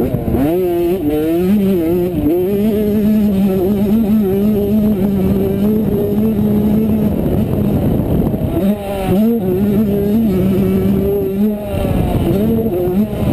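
85cc two-stroke motocross bike engine revving hard at racing speed, its pitch climbing and falling with the throttle and dipping briefly a few times on shifts or throttle lifts. Heard from the rider's helmet with wind rumble underneath.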